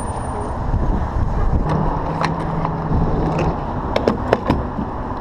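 Steady low rumble of traffic and wind at a gas station, with a short steady hum in the middle. A few sharp clicks and knocks about four seconds in come from the fuel-pump nozzle being handled at the car's filler.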